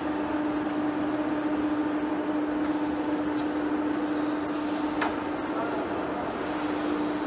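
Heavy-duty floor (face) lathe running: a steady hum over even machine noise, with one short tick about five seconds in.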